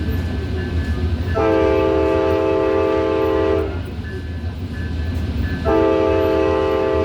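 Tri-Rail commuter train's air horn sounding two long chord blasts about two seconds apart, the second still sounding at the end, over the steady low rumble of the moving train.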